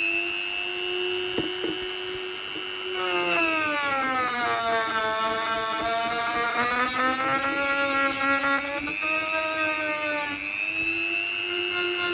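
Small electric power tool motor running with a steady whine. Its pitch sags for a few seconds in the middle and recovers, as the motor slows under load and speeds up again.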